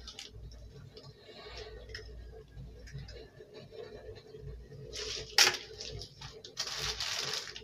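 Quiet handling of kitchen items by hand: a sharp click about five seconds in and a short rustling hiss near the end, over a faint steady hum.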